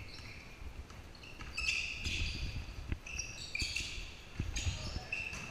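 Basketball sneakers squeaking on a hardwood gym floor, a series of short high squeals, mixed with a basketball bouncing on the court.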